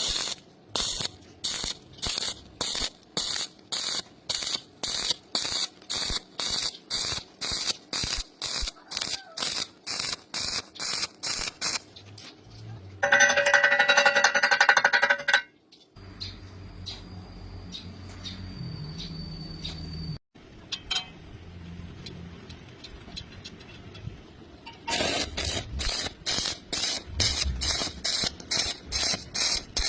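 Welder arc struck in short bursts, about two a second, stitch-welding thin sheet metal so it does not burn through. One longer continuous burst comes about halfway through, then the short bursts return near the end.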